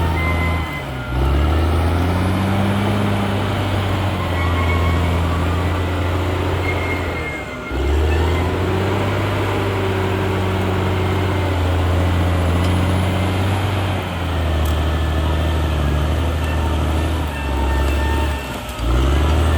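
Caterpillar D6R XL bulldozer's diesel engine running hard at a steady pitch, with faint thin whines above the engine sound. Its sound dips briefly a few times: about a second in, midway, and twice near the end.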